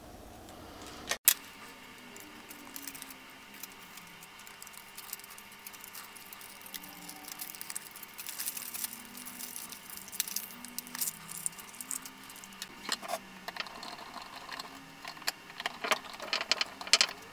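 Small clicks, clinks and rattles of acrylic 3D-printer frame panels, screws and a screwdriver being handled during kit assembly. The clicks come more often and louder near the end.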